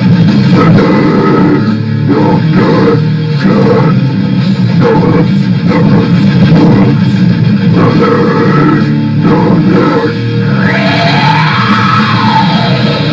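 Loud heavy rock music with guitar; about ten and a half seconds in, a long line rises and then falls in pitch.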